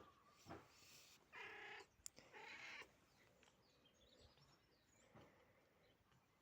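Domestic cat meowing twice in a row, two calls of about half a second each, a second or so in, against a quiet room.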